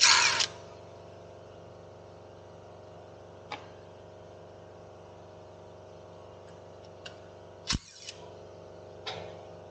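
Handling noises of someone working on the tractor: a rustling burst at the start, then a few scattered clicks and knocks, one sharp knock the loudest, over a steady low hum.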